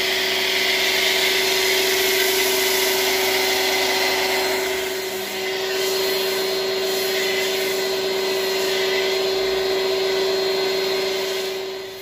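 Electric pressure washer running steadily, its motor and pump humming under the hiss of a foam cannon spraying foam. It shuts off near the end.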